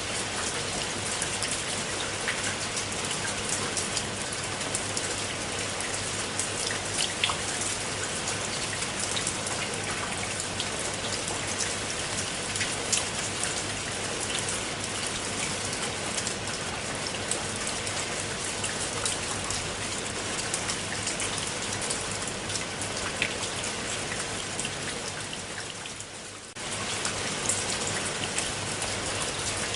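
Steady rain falling on a pool of water, a dense hiss with many individual drops ticking and splashing. About 26 seconds in it briefly fades, then comes back abruptly.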